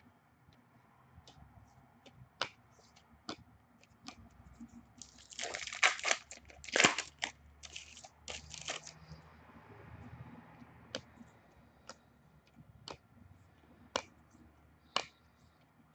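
Foil trading-card pack wrapper being torn open and crinkled for a few seconds around the middle, with scattered sharp clicks of cards being handled and laid down before and after.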